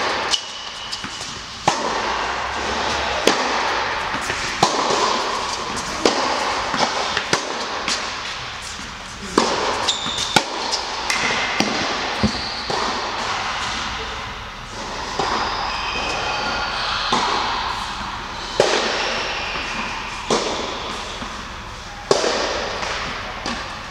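Tennis rally in a large indoor hall: the ball is struck by rackets and bounces on the court, giving sharp hits about every second and a half, each echoing through the hall.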